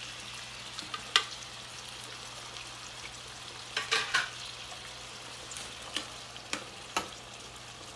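Sardines and olive oil sizzling steadily in a hot stainless steel sauté pan. Sharp metal clinks of a spoon against the tin and the pan come about a second in, in a cluster around four seconds in, and a few more times near the end.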